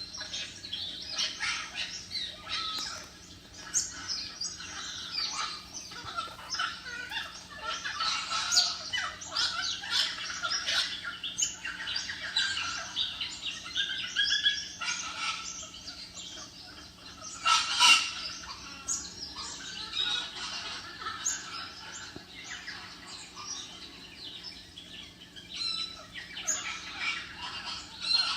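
Parrots chirping and calling over one another in quick, continuous bursts, with one louder call about 18 seconds in.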